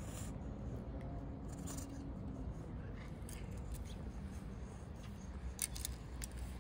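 Steel deshedding brush raking through a cat's fur in short scratchy strokes, with a cluster of sharp clicks near the end as the cat bites at the brush.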